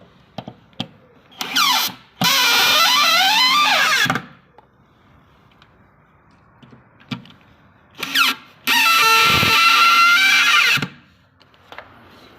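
A power tool cutting wood in two bursts of about two seconds each, its whine shifting in pitch under load. Between the cuts there are a few light knocks.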